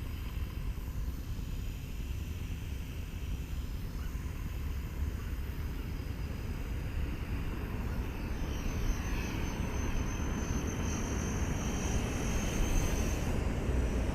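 230S electric RC helicopter's rotors and motor running as it comes in to land, slowly growing louder. A thin, high, steady whine joins about halfway through.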